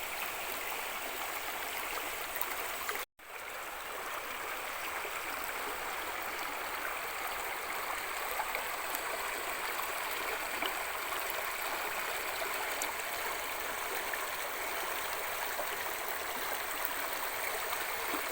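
Mountain stream rushing steadily over rocks, a continuous even wash of water, with a split-second break about three seconds in.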